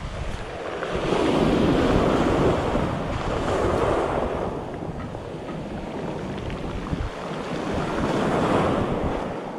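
Sea surf washing over shore rocks, swelling twice as waves come in and drawing back between them, with wind rumbling on the microphone.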